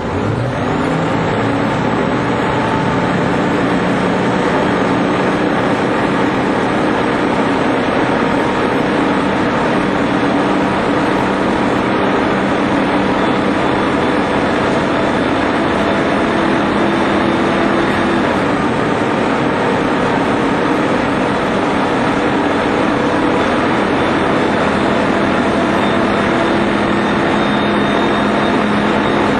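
Eagle Model 10 coach's diesel engine running under way, its pitch rising briefly at the start and then holding steady.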